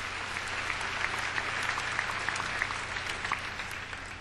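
Audience applauding, many hands clapping together, slowly dying down near the end.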